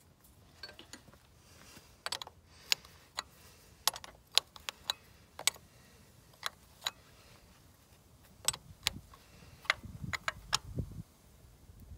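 Ratchet wrench clicking in irregular single clicks as the hand primer pump is tightened onto a diesel lift pump, with a few duller knocks near the end.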